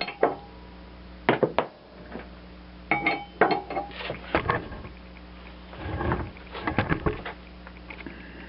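Steel wrench and socket clanking and scraping on a mower deck's blade spindle nut as it is tightened: separate ringing metallic clinks, then clusters of rattling strokes.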